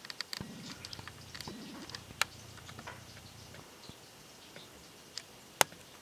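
Woodpecker pecking at a suet feeder: a run of irregular light clicks and taps, with two sharper, louder knocks, one about two seconds in and one near the end.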